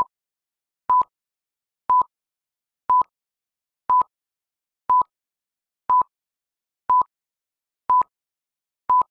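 Electronic timer beeps: ten short beeps at one steady high pitch, evenly spaced one each second, with silence between. They count off the time given to answer a quiz question.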